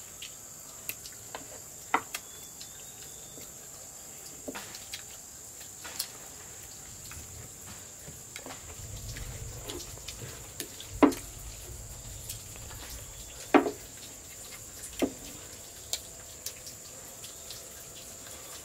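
Chopsticks clicking and clinking against bowls and plastic food containers during a meal, in scattered single taps with two louder ones past the middle. A steady high-pitched insect buzz runs underneath.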